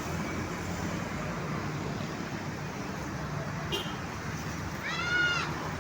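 Steady roadside traffic noise, with a brief high beep a little after the middle and a short horn note near the end that bends up and then down.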